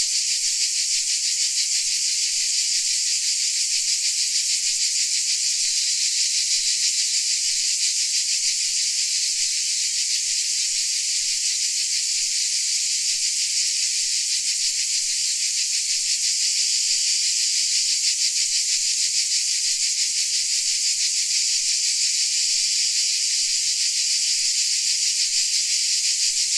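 Dense chorus of crickets: a continuous, high-pitched shrill buzz with a fast, even pulsing, holding steady in level.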